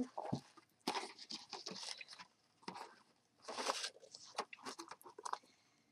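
Hands opening a cardboard mailing box and its paper packaging: irregular crackling and rustling in short bursts.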